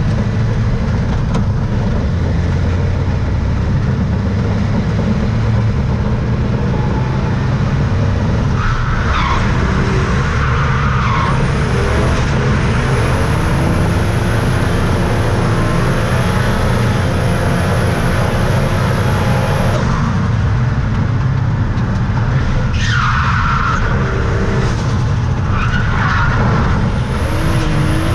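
A track car's engine running hard throughout, heard from inside the cabin, with tyres squealing in a slide about nine seconds in and again in the last few seconds.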